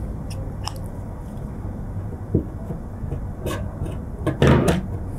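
Hands working a strip of tweed fabric with a needle, picking threads out of its edge to fray it into fringe: a few light scratches and taps, and a louder rustle about four and a half seconds in, over a steady low room hum.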